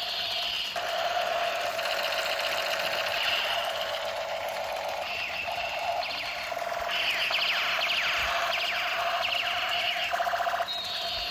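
Electronic toy sound effects from a small speaker: a steady buzzing tone under fast warbling, chirping sweeps that loop.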